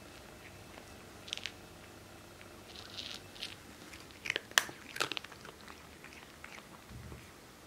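A cat crunching its food, in scattered sharp crunches, the loudest a cluster about four to five seconds in.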